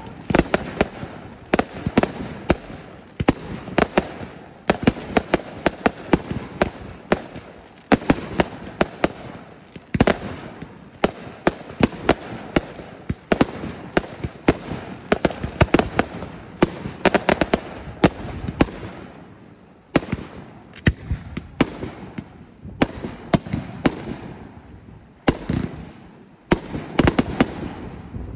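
Fireworks display: rapid volleys of sharp bangs and crackling from bursting shells, several a second, easing off briefly about two-thirds of the way through before picking up again.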